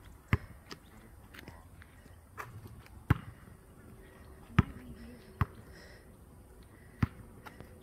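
Basketball bouncing on an outdoor hard court as a player dribbles: about seven sharp thuds at uneven intervals.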